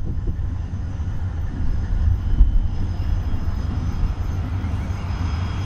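An EMD SD70MAC and a GE CW40-8 diesel-electric locomotive running at a distance, a steady low rumble with one brief swell about two and a half seconds in.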